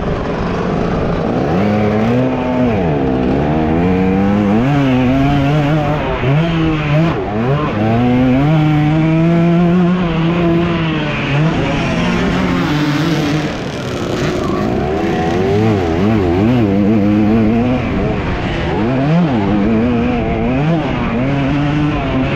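Dirt bike engine, heard from the bike itself as it is ridden around a motocross track, revving up and falling back again and again as the throttle is worked, with a brief drop in level about thirteen seconds in.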